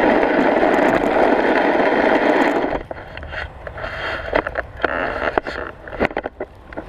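Snow scraping and sliding against a blade edge pushed through it: a loud steady scrape for the first two and a half seconds, then lighter scattered scrapes and knocks.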